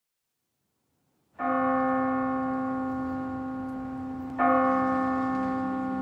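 A bell struck twice, the first strike about a second and a half in and the second about three seconds later, each ringing on with many steady tones that slowly fade.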